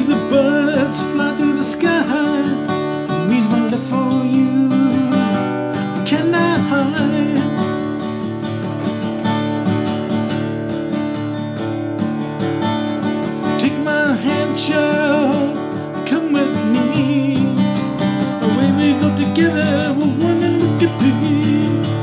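Acoustic guitar strummed steadily, with a man singing a slow song over it.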